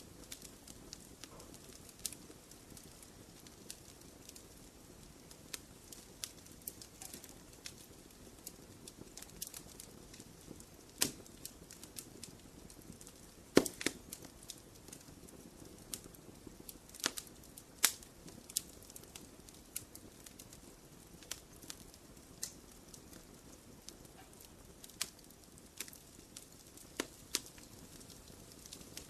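Wood fire crackling in a fireplace: irregular sharp pops and snaps over a soft low rush of burning, with the loudest pop about halfway through.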